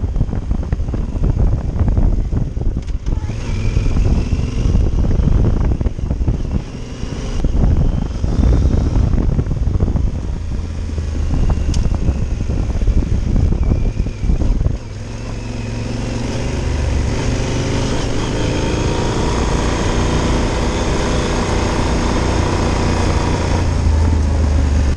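Yamaha Super Ténéré's parallel-twin engine running under way on a rough dirt road, with many knocks and rattles over the surface and a wind-like rush for the first half. From about halfway the ride smooths out and the engine holds a steady note that slowly grows louder.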